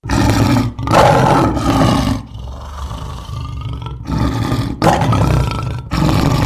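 A big cat roaring: a run of loud, rough roars about a second each, with a weaker stretch in the middle, cut off abruptly at the end.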